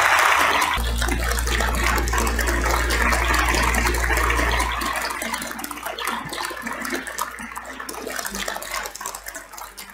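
Applause, dense at first and slowly thinning out, with a deep steady hum underneath from about a second in until nearly five seconds in.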